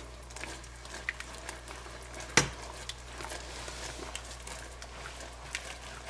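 Thick gravy bubbling in a pan, with scattered soft pops. One sharper click comes about two and a half seconds in.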